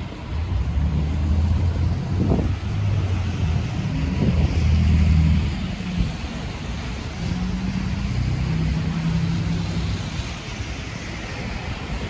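Gusty wind buffeting the phone's microphone in uneven low rumbles, over the hiss of street traffic that swells and fades as cars pass.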